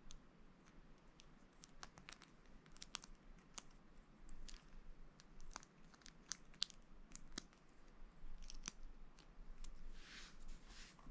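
Plastic Lego pieces being handled and pressed together: a faint, irregular scatter of small sharp clicks, with a brief rustle near the end.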